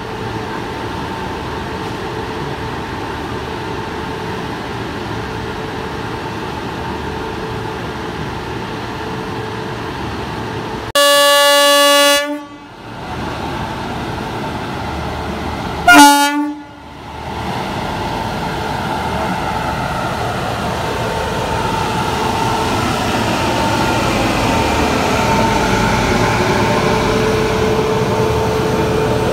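A WAP-7 electric locomotive standing at a platform with a steady hum from its blowers. About eleven seconds in it gives one long horn blast, then a short, louder toot five seconds later. It then starts to pull its train away, the running noise growing steadily louder.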